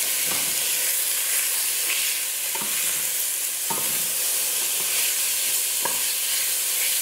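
Beef chunks sizzling as they brown in hot lard in a stainless steel pot, while a wooden spoon stirs and turns them, knocking against the pot a few times.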